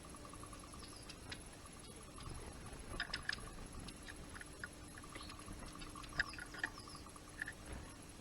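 Small birds at a feeder giving short, scattered chip calls, with clusters of quick notes about three seconds in and again about six seconds in, over a faint steady hum.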